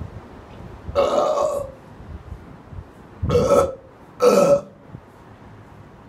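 A man burping three times: a longer burp about a second in, then two shorter ones close together around three and four seconds in. The burps are brought on by drinking tap water.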